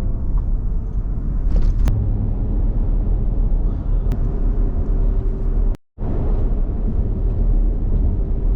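A vehicle on the move: a steady low road rumble mixed with wind noise. It drops out sharply for a moment about six seconds in.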